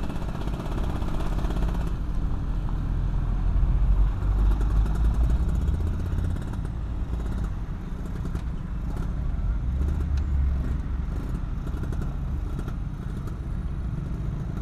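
Yamaha F1ZR 110cc two-stroke motorcycle engine running at low speed, its note swelling briefly twice, amid surrounding traffic.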